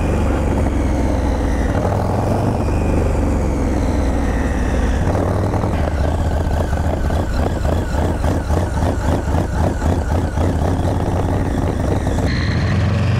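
Motorcycles running at road speed: a steady engine rumble under wind rush. In the middle a pulsing engine beat comes through more strongly as a second motorcycle closes in, and the sound changes abruptly near the end.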